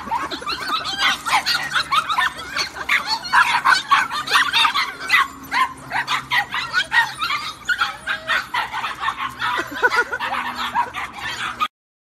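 A group of puppies yapping in a rapid, overlapping run of high-pitched yips that cuts off abruptly near the end.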